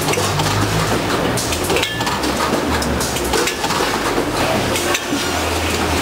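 Limes tumbling and clattering continuously through a Newtec 3009XL fruit weigher, dropping from its weighing pans into stainless-steel hoppers, over the low hum of the running machine.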